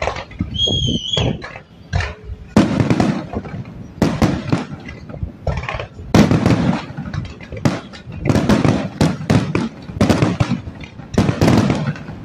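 Fireworks display: dense volleys of sharp bangs from launching comets and bursting shells, coming in loud clusters every second or two. A short high whistle sounds about half a second in.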